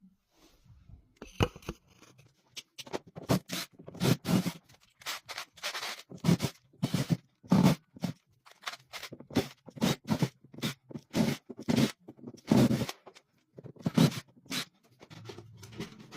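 Irregular clicks, scrapes and knocks of hands and tools handling hardware, in quick uneven succession.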